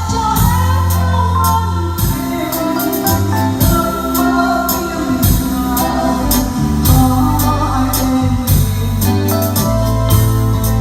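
Korg Pa3X arranger keyboard playing a song over an auto-accompaniment style: held bass notes, a steady drum beat and a melody line on top.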